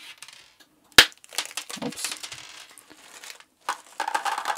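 Small hard-plastic LEGO Technic parts clattering on a plastic plate: one sharp click about a second in, then a run of small clicks and rattles. Near the end a plastic bag rustles and crackles as more parts are tipped out of it onto the plate.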